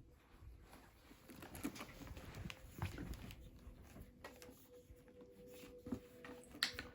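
Faint handling noises: scattered soft taps, clicks and rustles as a leather handbag and its packaging are handled, with a faint steady hum joining about halfway through.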